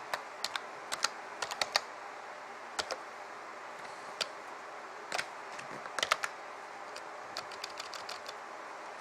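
Typing on a computer keyboard: irregular clusters of key clicks broken by short pauses, over a faint steady hiss.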